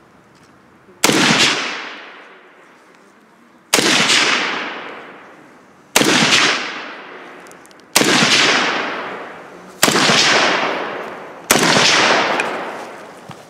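Kalashnikov-pattern rifle fired six single aimed shots from the prone position, about two seconds apart, each a sharp crack followed by a long fading echo.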